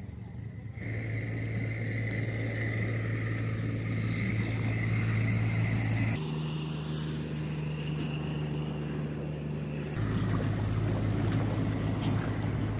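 A steady low motor-like drone that changes abruptly at three cuts, about a second in, about six seconds in and about ten seconds in.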